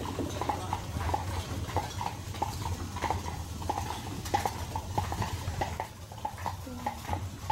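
Hooves of the two carriage horses clip-clopping on a dirt path, a few uneven strikes a second over a steady low rumble of the moving carriage. The hoofbeats stop about six seconds in.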